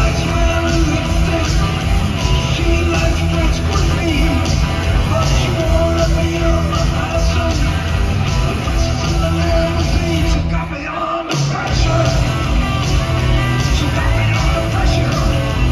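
Live rock band playing: electric guitar, bass guitar and drum kit. The band drops out briefly, for under a second, about ten and a half seconds in, then comes back in.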